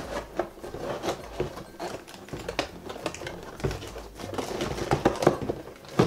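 Hands handling and opening a cardboard toy box, with irregular clicks, taps and rustles of cardboard and plastic packaging.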